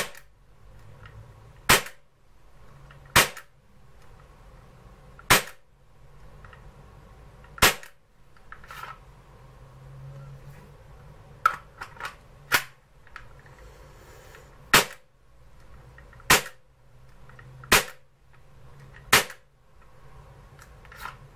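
Taurus PT24/7 airsoft pistol working under trigger pulls: about a dozen sharp snaps, one every second or two, with a few fainter mechanical clicks in between.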